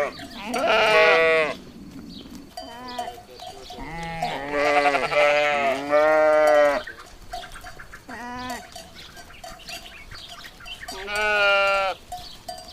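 Goats bleating: about six separate wavering, quavering calls, some short and some lasting around a second, spread across a dozen seconds.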